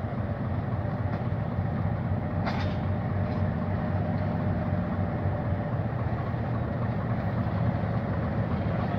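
Diesel locomotive engine running with a steady low drone as the locomotive slowly approaches. A short faint click comes about two and a half seconds in.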